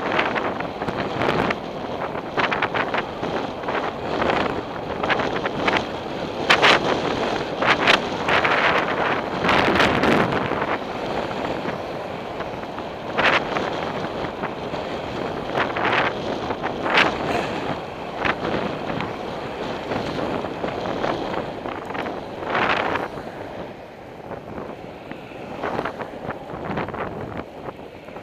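Wind buffeting the microphone of a camera on a moving bicycle, with road noise, passing vehicles now and then, and several sharp knocks.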